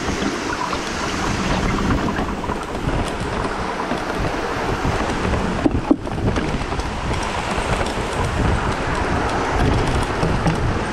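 Mountain bike rolling down bare rock slabs: a steady noise of tyres on rock mixed with wind on the camera microphone, with a couple of sharp knocks about six seconds in.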